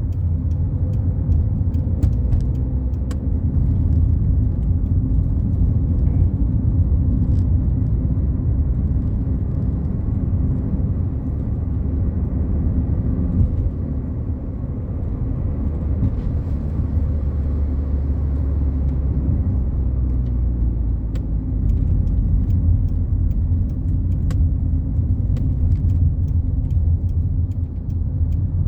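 Fiat Palio Fire cruising on the highway, heard from inside the cabin: a steady low rumble of engine and tyres on the road, with occasional faint ticks.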